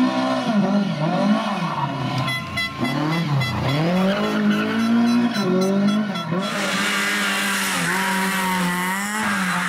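Rally car engines revving up and down hard as the cars slide through corners, with tires squealing: first a classic Lada saloon, then a Honda Civic.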